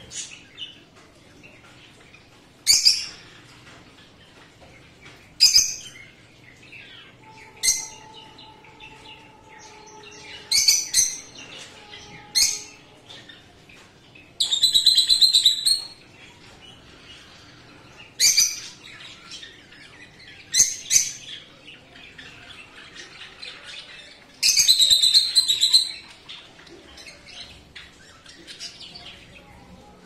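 Caged budgerigars and rosy-faced lovebirds calling: about a dozen loud, shrill calls a second or two apart, two of them longer buzzy calls, over faint continuous chattering from the flock.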